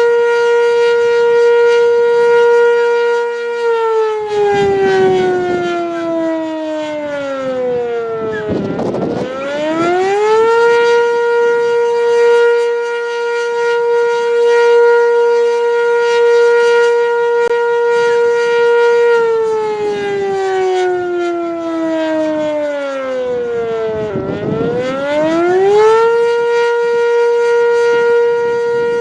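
Sentry 10V outdoor warning siren sounding its attack signal. It holds a steady high tone, winds down in pitch over about five seconds, then winds back up in about two seconds to the steady tone, and does this twice.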